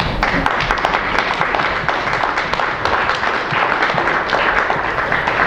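Audience clapping and applauding, a dense patter of many hands.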